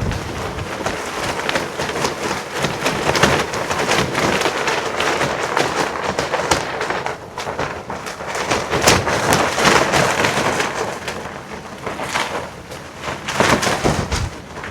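Strong wind gusting and buffeting the microphone, with satin clothing flapping and crackling in it. The gusts rise and fall, easing about twelve seconds in before picking up again.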